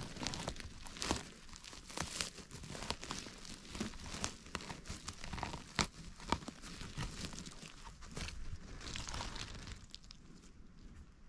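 Close crackling and rustling of dry spruce-needle litter and twigs, with sharp little snaps, as a hand digs around and pulls a young porcini mushroom up from the forest floor. The crackling dies down near the end.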